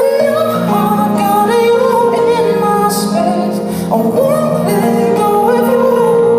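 Live pop song performance: a high singing voice gliding between notes over steady held accompaniment.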